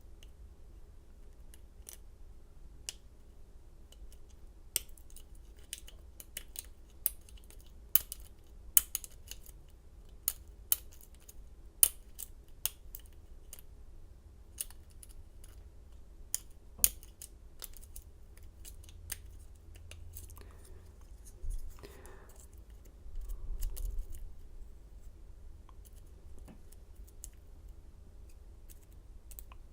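Sharp, irregular little metallic clicks of a lock pick and tension wrench working the pins of a Schlage pin-tumbler lock, which is held in a false set. The clicks come thickest in the first half, with a short stretch of handling rustle a little over twenty seconds in.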